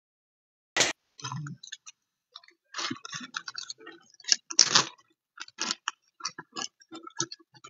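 Hands rummaging through scraps of craft material: a sharp click about a second in, then irregular crinkles, clicks and taps, with a louder crinkling rustle near the middle.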